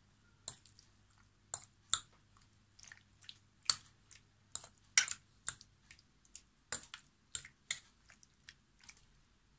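Boneless chicken pieces being mixed with beaten egg and a wet spice marinade: irregular wet squelches and clicks, about two a second.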